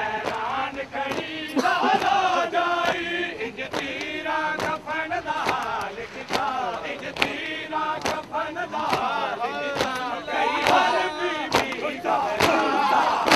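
A crowd of male mourners chanting and calling out together, many voices overlapping, with sharp slaps or claps scattered through.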